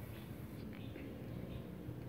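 Faint room tone: a steady low hum with a few soft, brief noises.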